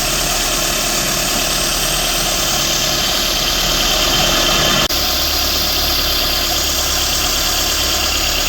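Renault Sandero Stepway's 1.6 8-valve four-cylinder engine idling steadily, its accessory belt running on a newly fitted tensioner and belt without the squeal it had before the repair. There is a brief break about five seconds in.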